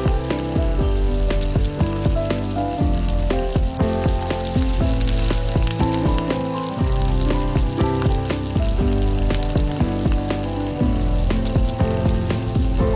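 Corn frying in hot oil in a miniature pan, a steady crackling sizzle, over background music with sustained notes.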